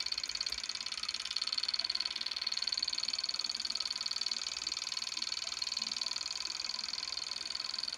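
Model Stirling hot-air engine running steadily on its alcohol burner: a fast, even mechanical clatter whose rate gives the engine's speed. It is recorded with the volume turned up, so it sounds louder than the engine really is.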